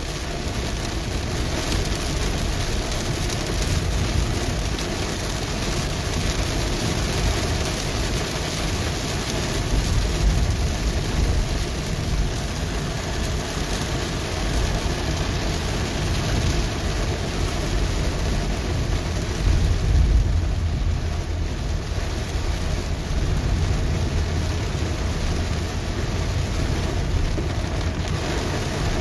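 Heavy rain drumming on a car's roof and windshield, heard from inside the cabin as a dense, steady hiss over a deep rumble of the moving car. The low rumble swells briefly about two-thirds of the way through.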